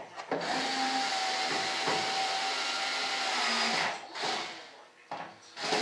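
A small handheld power tool's motor runs steadily for about three and a half seconds, then is triggered again in two short bursts near the end.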